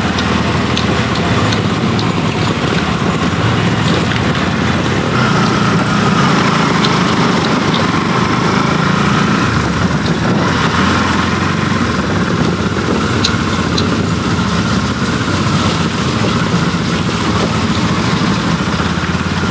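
Motorcycle engine running steadily while riding slowly over a wet, muddy and stony dirt trail, with the tyres crunching over the stones.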